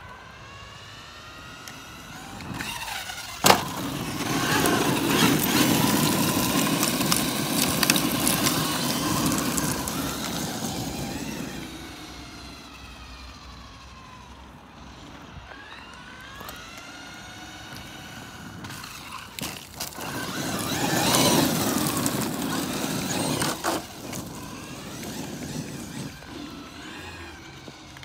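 Thunder Tiger e-MTA radio-controlled electric monster truck driving about, its motor whine rising and falling as it speeds up and slows. There is a sharp knock about three and a half seconds in, and two loud stretches of motor and tyre noise as it runs close by.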